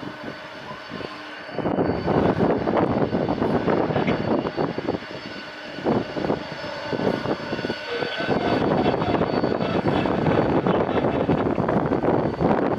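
Jet airliner engines running with a loud, noisy roar that swells sharply about a second and a half in, dips briefly midway, then holds loud.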